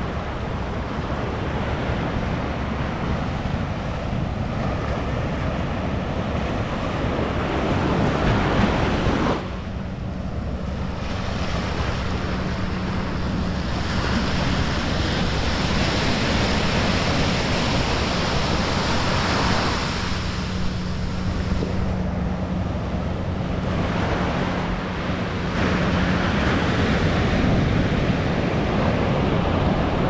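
Ocean surf breaking and washing up the sand, a steady rushing that swells and eases as each wave comes in, with wind buffeting the microphone.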